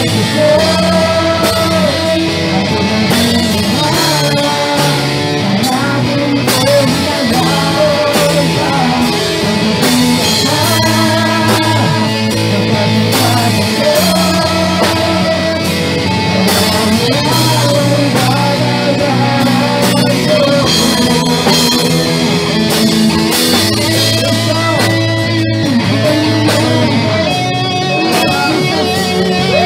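A live amplified band: a woman singing lead into a microphone over electric bass and electric guitar.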